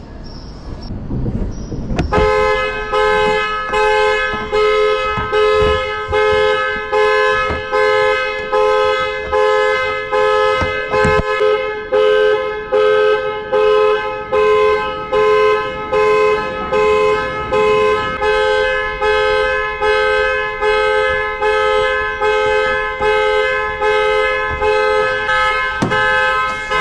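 Car horn sounding in a long run of even, repeated honks, about one a second, starting about two seconds in: the car's alarm going off while the locked car is being opened.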